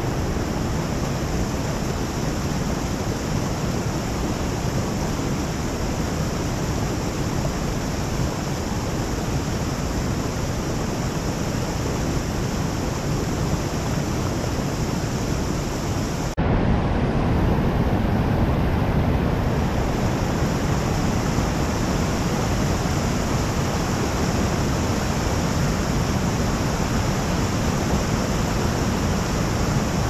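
Steady rushing of mountain spring water flowing into a river, an even wash of water noise with a brief break about sixteen seconds in, after which it is a little louder.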